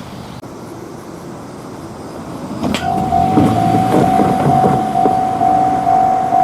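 Japanese railway level-crossing warning bell coming on with a click about halfway through, then ringing its "kan-kan" as one repeated tone at about two strikes a second. Before it, only a low steady background noise.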